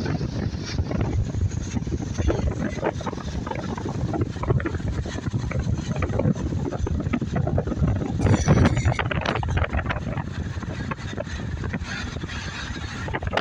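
Wind buffeting the microphone over a continuous low rumble, with irregular crackling throughout.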